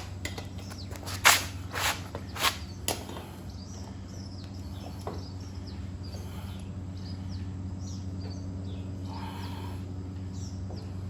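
A socket ratchet clicking in four short strokes in the first three seconds as a wheel nut is worked, then wild birds chirping over a steady low hum.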